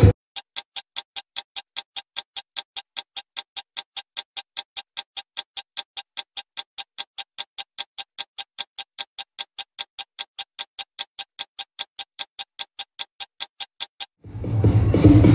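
Clock-like ticking sound effect: short, high, evenly spaced ticks at about four a second. It stops suddenly near the end and music comes back in.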